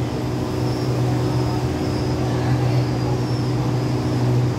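Diesel passenger train standing at a platform with its engine idling: a steady, unbroken low hum.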